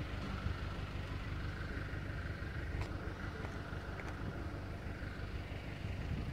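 A vehicle engine running with a steady low rumble, with a couple of faint clicks about three and four seconds in.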